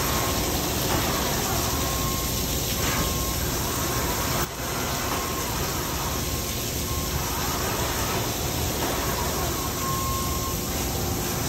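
Makino MC-108 horizontal machining center running a cut under flood coolant: a steady hiss of coolant spraying over the workpiece and machine noise, with a faint whine that comes and goes.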